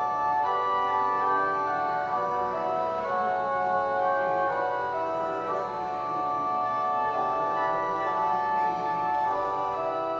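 Church organ playing slow, sustained chords that change every second or two: the recessional music closing the Mass.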